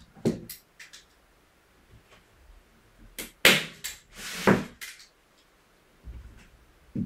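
Hand staple gun loaded with 6 mm staples, firing through canvas into a wooden stretcher bar: a few sharp snaps, the two loudest about a second apart in the middle, with the canvas rustling as it is pulled taut between shots.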